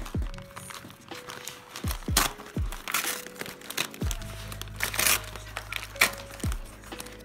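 Brown kraft-paper packaging being crinkled and torn open by hand in a run of short, sharp rustles and rips. Background music with held notes and a deep beat plays underneath.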